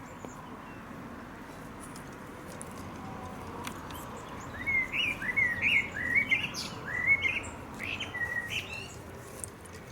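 A small songbird singing a quick run of short, rising and falling chirps, starting about halfway through and stopping near the end, over a steady low hiss.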